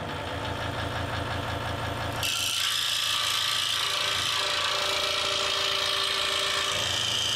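Delta scroll saw running with its blade stroking rapidly up and down. About two seconds in, the blade starts cutting into a thin board, adding a loud, steady hiss from the cut.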